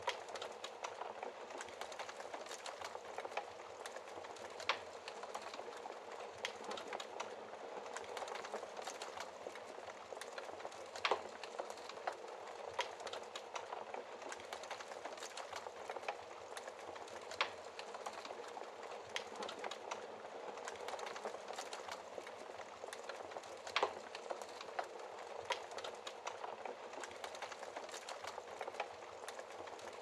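Logs burning in a fireplace, crackling steadily, with a sharper pop every few seconds.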